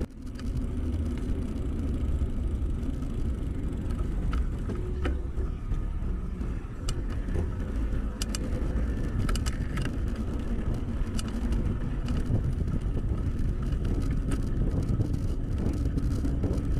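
Wind rushing over the bike-mounted camera's microphone and tyre rumble from a road bike ridden on asphalt, with scattered light clicks and rattles from the bike.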